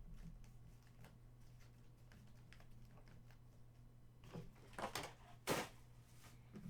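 Quiet handling of hockey trading cards and their pack wrappers: faint clicks, then a few short rustles about four to five and a half seconds in.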